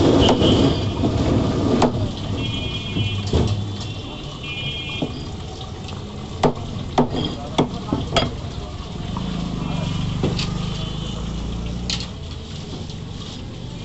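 Cleaver chopping chicken feet on a wooden chopping block: sharp single knocks at irregular intervals, several close together in the middle, over constant market background noise.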